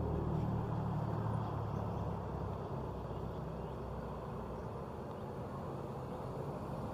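Large diesel bus engine idling, a steady low hum that eases slightly in the middle.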